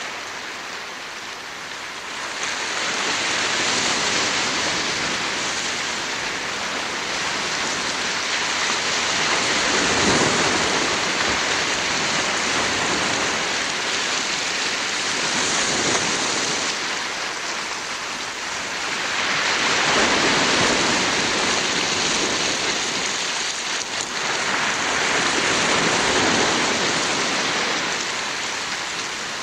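Rushing water noise that swells and eases every five or six seconds.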